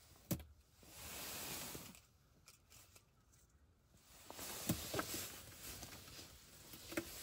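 Faint rustling that swells twice, with a sharp click near the start, another about halfway through and a third near the end.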